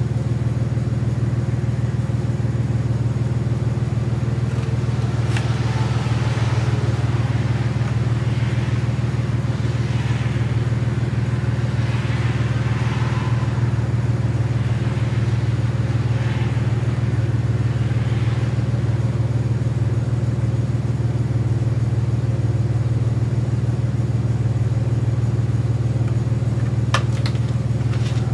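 A steady low machine hum runs throughout. Over it are faint scratchy strokes of a pencil tracing around a paper gasket on gasket sheet, a series of them from about five to eighteen seconds in. A couple of sharp clicks come near the end.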